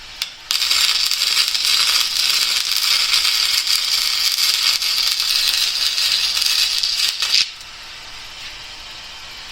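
Wire-feed welder arc crackling steadily on steel for about seven seconds, starting about half a second in after a brief strike and cutting off suddenly.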